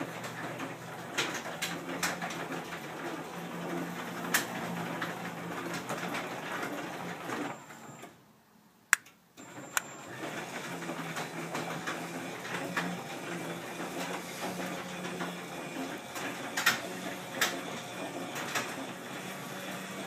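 Genie garage door opener running, its motor humming steadily under rattling clicks as it raises the door. It stops about eight seconds in, a single sharp click follows, and it starts up again to lower the door.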